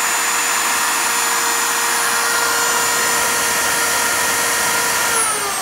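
Craftsman router, mounted under a router table, running at full speed with a steady whine and rush of air. Near the end it is switched off and its whine falls in pitch as it spins down.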